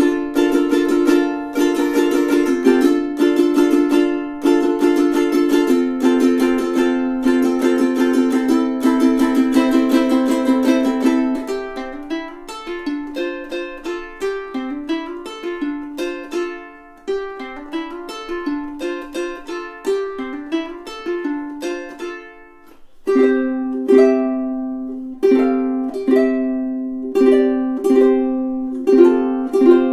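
Cort UKEBWTOP all-solid blackwood tenor ukulele played solo: busy strummed chords for about the first eleven seconds, then quieter picked single notes, then louder chords strummed about once a second from about 23 seconds in.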